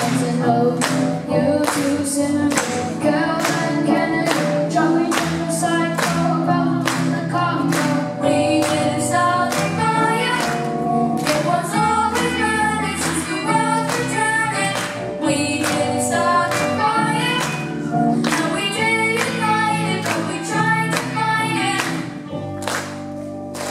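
Live rock band playing a song: a singer over electric guitars and bass, with a steady beat of sharp hits about twice a second. Near the end it stops on a held chord.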